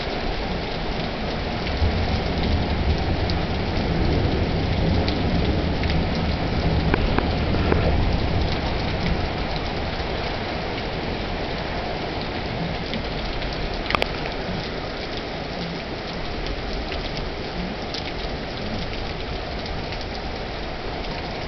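Heavy rain pouring steadily, with a low rumble swelling from about two to eight seconds in and a single sharp click about fourteen seconds in.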